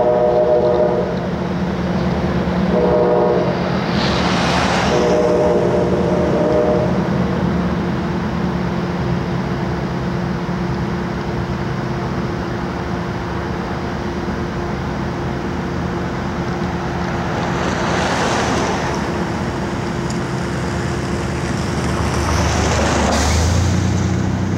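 CSX freight train's locomotive horn sounding three blasts across the river, the last the longest, over the steady low rumble of the passing train. Three short swells of rushing noise rise and fall over it, the loudest about four seconds in.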